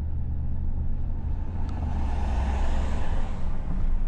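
Car driving along a city street, heard from inside the cabin: a steady low engine and road rumble, with tyre hiss swelling up about two seconds in and easing off again near the end.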